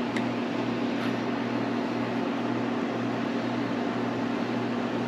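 Steady mechanical hum with a constant hiss, like a room fan or air conditioner running, with a couple of faint small clicks in the first second.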